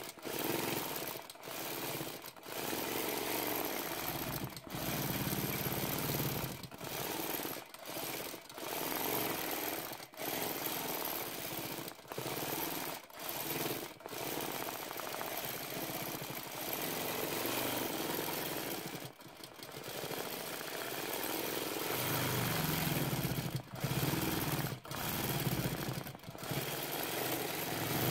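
A1 longarm quilting machine stitching freehand, its needle running in a rapid mechanical clatter that stops for a moment and starts again every second or two.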